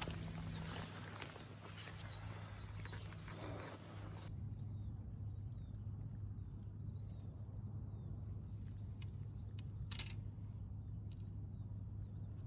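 Birds chirping in quick repeated calls over a low steady hum; the chirping drops suddenly fainter about four seconds in, and a few sharp clicks come near the end.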